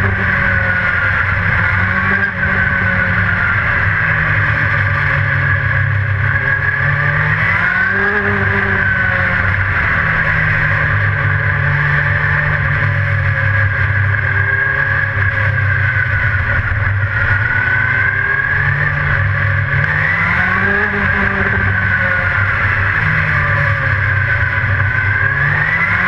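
A dirt-track race car's engine, heard from inside the cockpit at racing speed. It runs loud and continuous, its pitch rising and falling every few seconds as the driver gets on and off the throttle around the oval.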